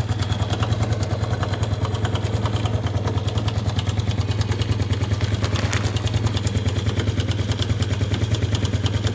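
Honda Biz 110i's single-cylinder four-stroke engine idling with a fast, even pulse and a loud mechanical noise from the engine. The engine is running with a bolt underneath slackened so that oil seeps out, a kind of bleeding meant to make the noise die away.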